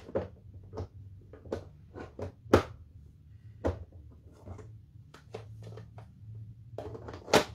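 Plastic Stampin' Pad ink-pad cases clicking and knocking against each other as they are picked through and handled: a string of short, irregular clacks, the loudest about two and a half seconds in and just before the end.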